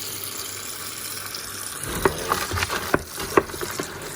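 Water running into a bin of dry pig feed pellets, grain and scraps, wetting it into a soupy mash, with a few sharp knocks from about two seconds in.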